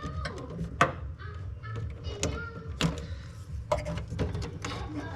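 Scattered sharp clicks and small knocks, about four of them, from hands working wires and connectors in an electrical panel, over a low steady hum.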